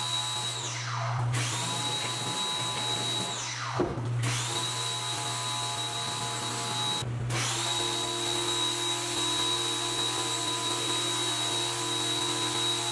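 Pressure washer spraying water onto a truck's body, a steady hiss over the pump motor's whine. Three times the spray stops and the whine falls sharply in pitch, then comes back up as spraying resumes.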